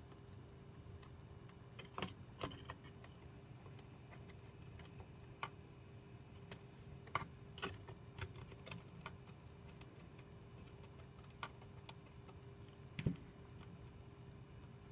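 Scattered small clicks and taps of a 2010 Mac mini's internal parts being handled and fitted by hand, over a faint steady hum. The loudest is a duller knock near the end.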